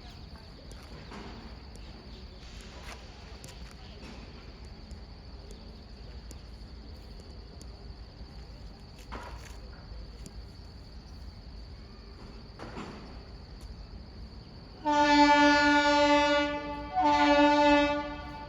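Indian Railways locomotive air horn sounding two loud blasts of about a second and a half each, with a short gap between them, near the end. Before the horn there is only a faint steady background with a high insect trill.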